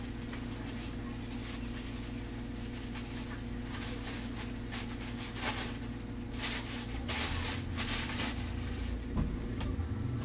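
Cabin sound of a Golden Dragon Astar electric city bus: a steady electrical hum with road rumble, with a few short rushes of hiss around the middle. Near the end the traction motor's whine starts to rise in pitch as the bus gathers speed.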